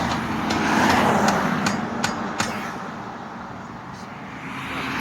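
A car driving past, its noise swelling to a peak about a second in and then fading away, with several sharp clicks or taps over it.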